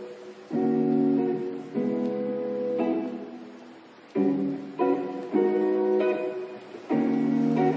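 Background music: a gentle strummed acoustic guitar playing a new chord about every second.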